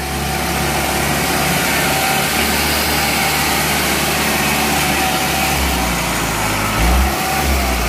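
Rice combine harvester's engine and drive running hard as the loaded machine climbs a muddy bank: a loud, steady mechanical din whose low hum shifts a little near the end.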